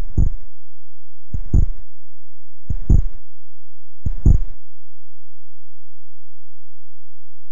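Four deep synthesized drum hits from the Amiga demo's electronic soundtrack, about 1.3 seconds apart, each a short boom that drops in pitch. After the last hit only a faint steady high tone remains.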